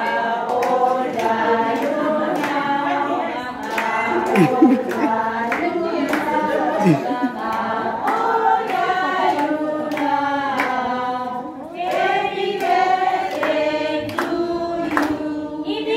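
A group of people singing a birthday song together, with hands clapping along.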